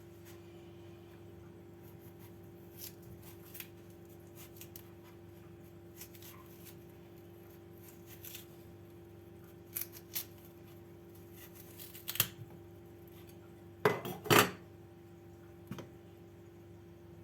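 Scattered clinks, scrapes and knocks of a metal kitchen utensil against a dish as a hole is cut into a black radish, loudest in a quick cluster of knocks about fourteen seconds in. A steady faint hum runs underneath.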